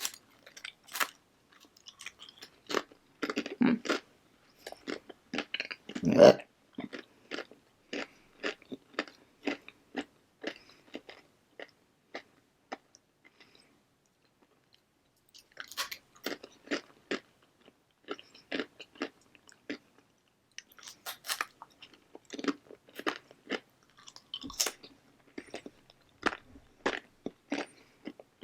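A person chewing crunchy blue corn tortilla chips in rapid, repeated crunches. The crunching stops for about three seconds a little before halfway, then resumes.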